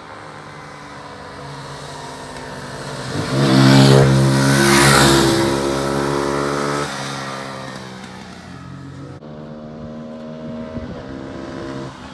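Small motorcycles, one an American Lifan KP Mini 150, ride past close by: the engine sound builds, is loudest about four to five seconds in, and then fades. About nine seconds in the sound changes abruptly, and an engine carries on more quietly.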